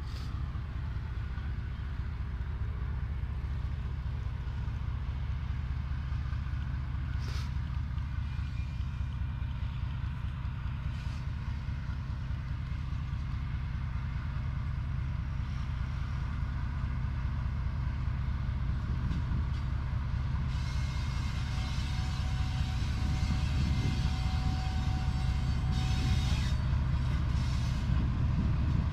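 Pakistan Railways GEU40 diesel-electric locomotive approaching with its train: a steady low engine rumble that grows gradually louder, with wheel and rail noise building over the last several seconds.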